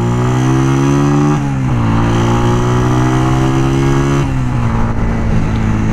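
Honda CG 125's single-cylinder four-stroke engine accelerating through the gears while riding. The revs climb, drop sharply at a shift about a second and a half in, climb again, and drop at a second shift about four seconds in, then hold steady.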